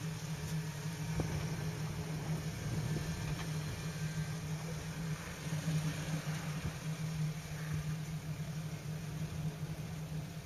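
Jeep Wrangler's engine running steadily at low revs as it crawls up a slickrock slope.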